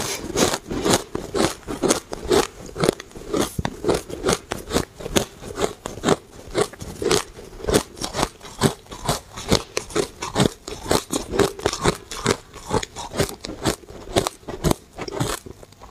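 Shaved ice, blended fine, crunched between the teeth and chewed close to a clip-on microphone, in quick crisp crunches about three a second.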